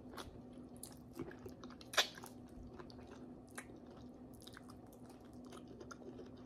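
Close-up chewing of tender boiled pork hock: soft wet mouth noises and small lip-smacking clicks, with a sharper smack about two seconds in.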